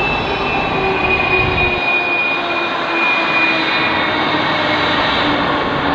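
Boeing 777 freighter's GE90 turbofan engines at taxi power: a steady jet roar with a whine that drifts slowly lower in pitch.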